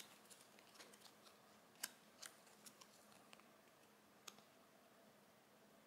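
Near silence, broken by a few faint clicks and rustles of fingers handling a plush toy's card swing tag.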